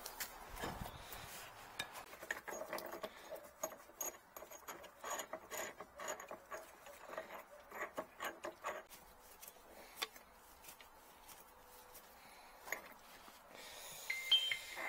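Pipe wrench and metal pipe fittings clinking, knocking and scraping as they are handled, with a busy run of light ringing clinks in the middle. A couple of short squeaks near the end.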